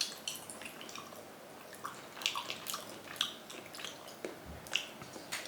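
Eating sounds: scattered soft, wet clicks and smacks, several a second, with no steady sound behind them.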